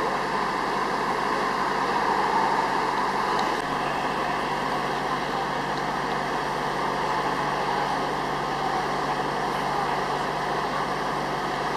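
Steady drone of idling vehicle engines with a constant hiss over it, unchanging throughout.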